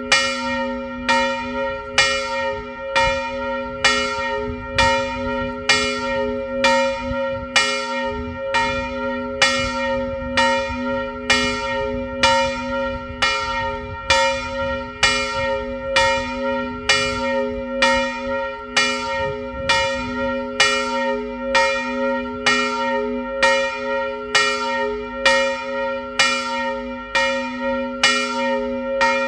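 Large church bell of about 330 kg, tuned to B-flat and cast by Karol Schwabe of Biała in the 1920s, ringing steadily. Its clapper strikes about three times every two seconds while a deep hum rings on beneath.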